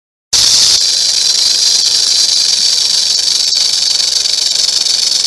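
Rattlesnake rattling its tail: a steady, high, dry buzz that starts suddenly a moment in after a short silence.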